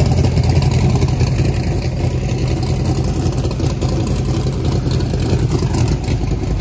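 Methanol-fuelled 540-cubic-inch Steve Morris twin-turbo big-block V8 idling steadily at around 1,200 rpm.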